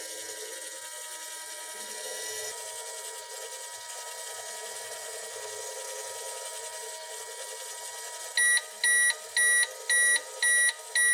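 Toy microwave running with a steady electronic hum, then beeping loudly six times, about two beeps a second, as its cycle finishes.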